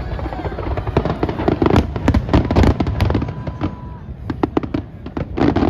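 Aerial fireworks bursting in rapid succession: a dense volley of crackling bangs, thinning briefly about four seconds in before another cluster of cracks near the end.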